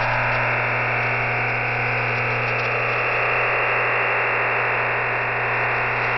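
EasyDRF OFDM digital data signal received over shortwave radio: a steady, dense hiss confined to the voice band, with a steady low hum beneath it. This is the sound of many closely spaced data carriers sending compressed files with error correction.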